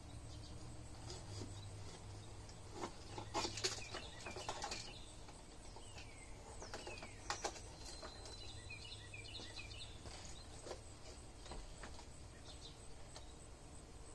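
Birds chirping in short falling notes and quick clusters, over a faint steady low background hum. Scattered clicks and knocks come through, most of them around three to five seconds in.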